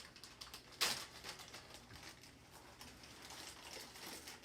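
Dry chow mein noodles being poured into a bowl, crackling and rustling, with one sharp knock about a second in.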